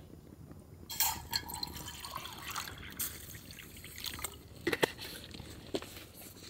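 Liquid being poured into a container for about two seconds, starting about a second in, followed by a few light knocks.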